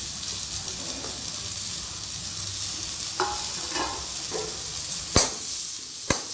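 Freshly added tomatoes sizzling in hot oil with frying onions and ginger-garlic paste, being stirred in the pan, a steady hiss. Two sharp knocks of the stirring utensil against the pan come near the end.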